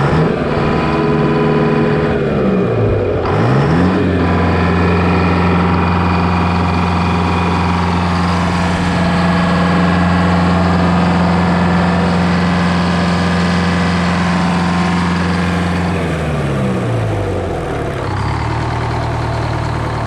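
GM (Detroit Diesel) 4-71 supercharged two-stroke diesel engine running while being warmed up. Its speed dips about two seconds in, comes back up and holds steady, then drops back to a lower idle near the end.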